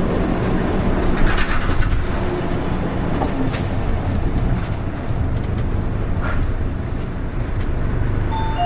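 Interior engine and running noise of a PKG-RA274MAN city bus, a steady low drone with scattered rattles. This bus's engine sounds different from others of its type. Near the end a short two-note falling chime sounds.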